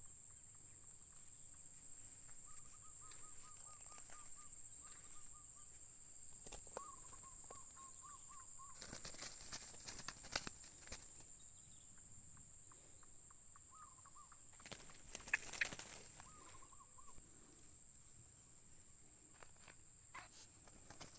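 Insects, likely crickets, shrilling steadily and high-pitched, while a bird calls in runs of quickly repeated notes several times. Twice there is a louder bout of rustling or flapping.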